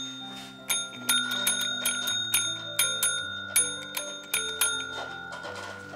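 Small push-top call bells rung over and over by cats pawing at them, a dozen or so bright dings at an uneven pace, each ringing on briefly. Soft background music plays underneath.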